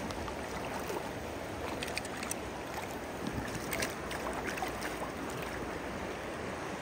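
River water running steadily over a shallow riffle, with a few faint brief splashes from a hooked fish thrashing at the surface as it is drawn toward the landing net.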